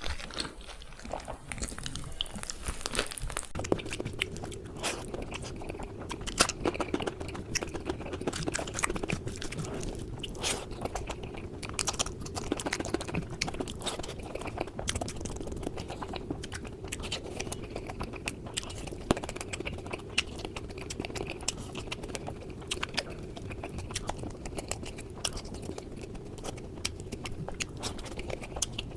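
Close-miked chewing and crunching of food, with many short sharp crunches and crackles.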